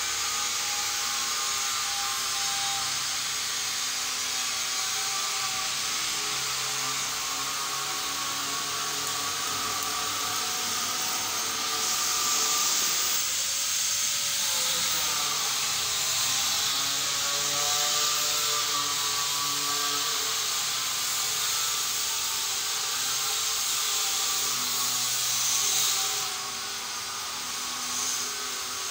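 A motor-driven machine running steadily with a strong hiss and a faint whine whose pitch dips and recovers about halfway through.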